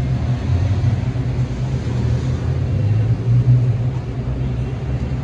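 Steady low rumble and hum of background machinery, such as ventilation, with no other distinct event standing out.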